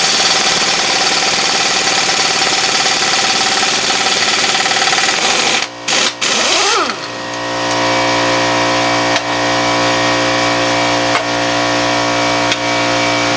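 Air impact wrench hammering on the 30 mm spindle nut of a 1999 Ford Taurus front hub to run it off, for about six seconds with two short stops near the end. A motor then spins up with a rising whine and settles into a steady hum with a fast pulse.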